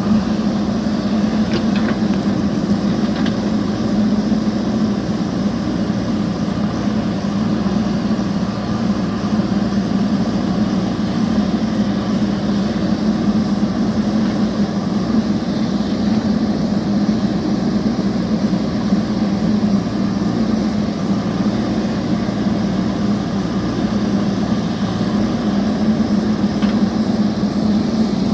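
A motor running with a steady hum, its pitch held level throughout.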